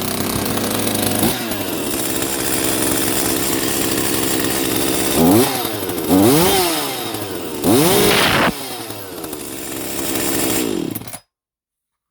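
Echo CS-510 chainsaw's two-stroke engine running just after starting, revved up and back down three times in a row about five to eight seconds in, then running steadily until it cuts off suddenly about eleven seconds in.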